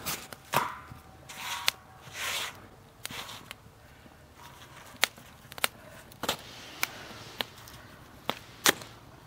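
Flatbread being tossed, turned and slid about on a hot iron griddle over a wood fire: a few brief scraping rustles in the first couple of seconds, then scattered sharp clicks and pops.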